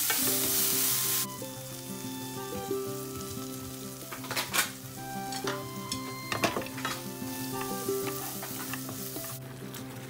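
Green peppers and red sausage sizzling in an oiled frying pan, stirred with wooden chopsticks. The sizzle is loud for about the first second, then drops to a quieter hiss, with a few sharp clicks of the chopsticks on the pan around the middle.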